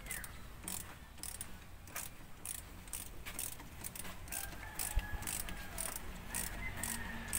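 Ratchet wrench clicking in short, irregular bursts, two or three a second, as a fitting on the engine is worked.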